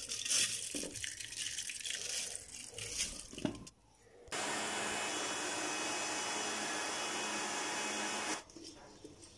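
Water poured and splashing into a mixer-grinder jar over rice, then the mixer grinder's motor running steadily for about four seconds as it grinds soaked rice and cooked rice with water into appam batter, stopping suddenly.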